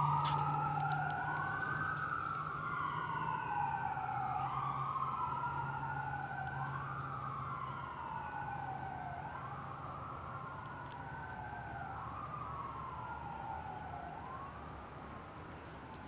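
Emergency vehicle sirens wailing, at least two of them out of step, each pitch sweeping slowly up and down every two to three seconds. They grow gradually fainter.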